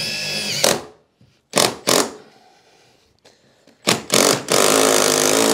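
Cordless driver sinking a 4-inch screw through the thermal break of an aluminium door sill: a few short bursts of the motor, then a longer steady run from about four and a half seconds in.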